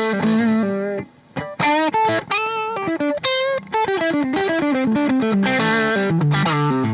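PRS S2 Custom 24 electric guitar playing a quick single-note lead line, with vibrato on the held notes and a short break about a second in.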